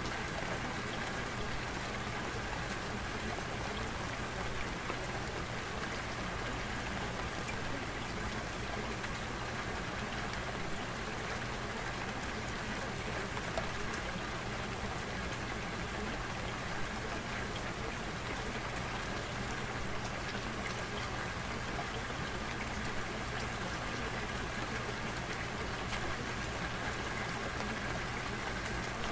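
Steady recorded rain, an even, unbroken patter with no pauses, used as the background track of a subliminal audio. A faint steady high tone and a low hum run beneath it.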